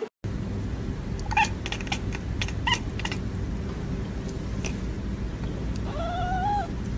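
Tabby cat making short chirping calls with clicks, then one longer meow that rises slightly near the end, over a steady low rumble.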